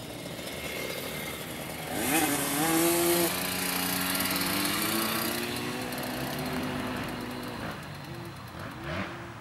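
Small kids' dirt bike engine revving while it is ridden: the note climbs sharply about two seconds in, holds, then slowly drops, with another short burst of throttle near the end.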